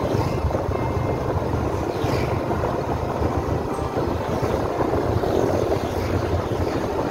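Motorcycle riding along at road speed: its engine running steadily under a rush of wind on the microphone.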